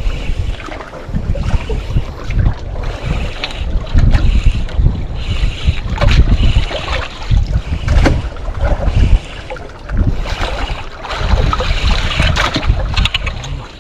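Wind buffeting the microphone in uneven gusts, over water lapping against a boat's hull.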